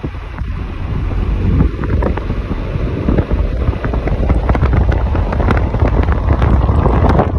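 Wind buffeting the phone's microphone from a moving car, over the low rumble of the car on the road. It grows louder over the first few seconds.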